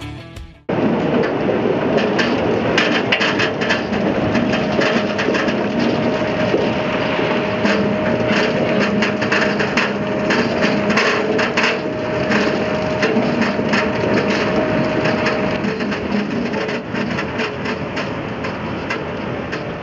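A load of sugar beet sliding and tumbling out of a truck tilted on a tipping platform, a dense, continuous clatter of many knocks as the roots pour into a concrete pit. A steady mechanical hum runs underneath and stops about three-quarters of the way through.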